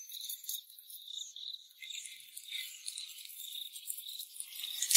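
Faint, high-pitched chirping of insects, many short irregular chirps. Near the end a soft lower rustle joins in.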